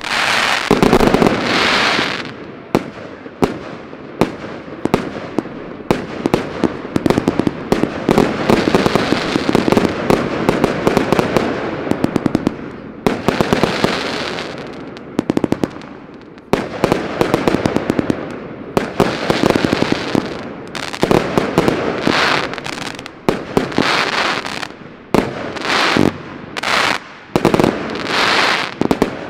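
A 432-shot fireworks battery (Geisha Tournament Box) firing. It begins as a dense, almost continuous stream of launches and bursts, then goes into separate volleys of sharp shots about once a second with short gaps between them.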